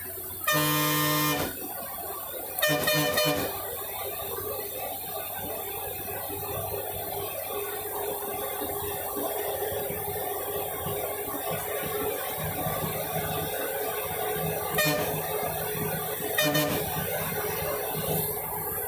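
A bus horn honks over the steady running noise of the bus climbing a ghat road. There is a honk of about a second about half a second in, another shorter honk at about three seconds, and two brief toots later on.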